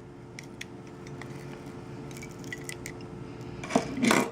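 Knife blade scraping and prying under the camera lens glass of a Samsung Galaxy S5: small clicks and scratches, then a louder scraping crunch near the end as the blade works under the glass.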